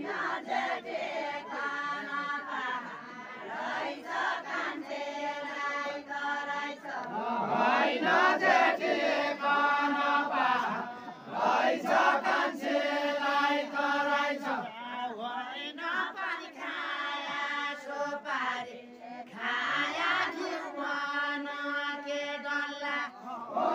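Women singing a Deuda folk song together in unison, unaccompanied, in phrases of a few seconds with brief breaks between them.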